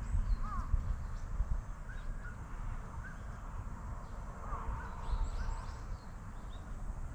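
Birds calling in the background with short, scattered chirps, over a low rumble close to the microphone that is strongest in the first second or two.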